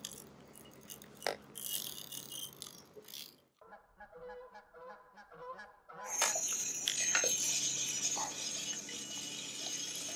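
Geese honking, a short run of repeated calls in the middle. Before and after, there is louder rustling and clicking from rod and clothing being handled.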